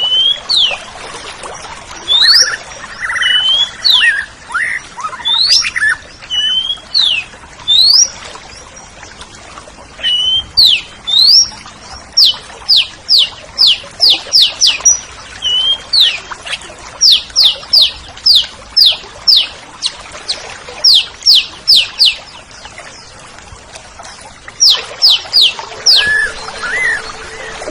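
Oriental magpie-robin (kacer) singing: loud clear whistles rising and falling, then fast runs of sharp repeated down-slurred notes, three or four a second, broken by short pauses between phrases.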